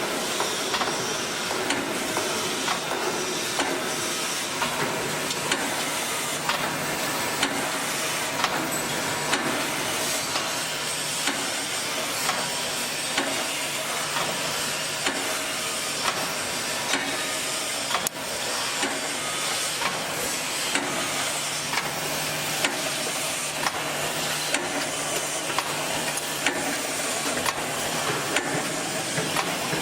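Wire mesh welding machine running: a steady hiss and hum with a short sharp clack about once a second as it cycles.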